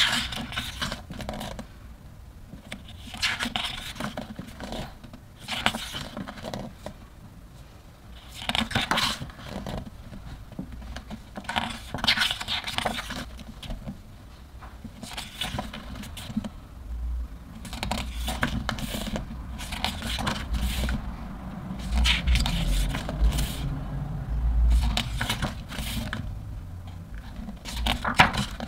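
Pages of a thick hardcover photobook being turned by hand: a papery swish and flap every two to four seconds. A low rumble runs through the second half.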